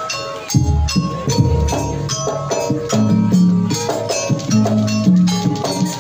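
Jaranan gamelan music: hand-drum strokes over quick, ringing notes from struck metal percussion, with held low tones underneath.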